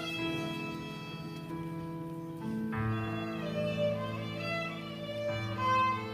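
Instrumental music led by a violin playing held notes over sustained chords, with the harmony changing about two and a half seconds in and again near the end.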